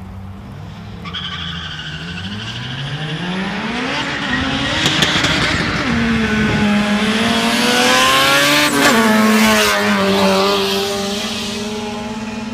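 Turbocharged Honda Civic engines accelerating hard through the gears, from an EM1 Civic Si and a GSR-engined EG Civic. The engine note climbs steadily, breaks at a shift about five seconds in and climbs again, and is loudest around nine seconds in. There the pitch drops sharply, then the sound holds lower and fades near the end.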